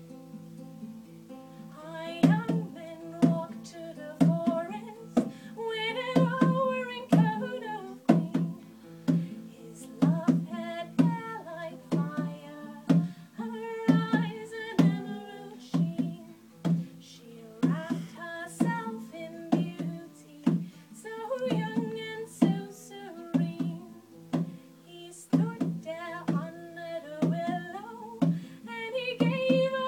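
A woman singing a Celtic song to strummed acoustic guitar; the guitar plays alone for the first two seconds before the voice comes in.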